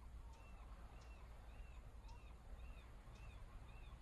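Faint outdoor ambience: a bird repeats a short chirp about two or three times a second over a low, steady hum.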